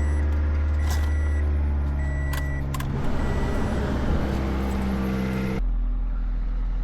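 Toyota Corolla engine idling steadily after a radiator replacement, with a dashboard warning chime beeping three times about a second apart over its first few seconds and a few light clicks. The sound changes abruptly near the end.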